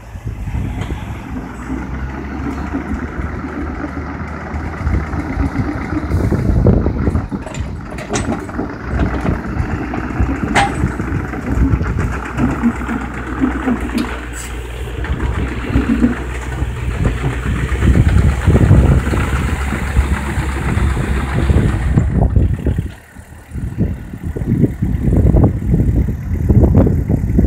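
Case excavator's diesel engine running as the machine works its way off a low-loader trailer, with a few sharp knocks in the first half and a brief drop in level near the end.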